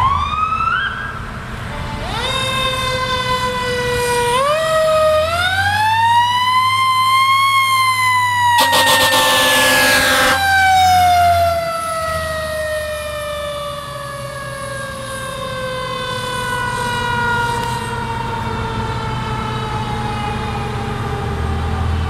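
Fire engine's mechanical siren winding up in several pushes to a peak, then slowly coasting down in pitch. One long air horn blast about nine seconds in, lasting a second and a half, with the truck's engine running underneath.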